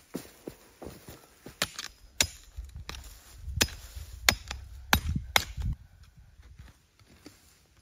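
A hand tool chopping into wood: about six sharp, irregularly spaced blows over a few seconds.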